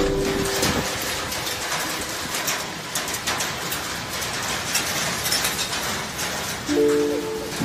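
Hail and rain pelting down in a dense, steady patter of small sharp ticks over a hiss of rain. Brief background music plays at the start and comes back near the end.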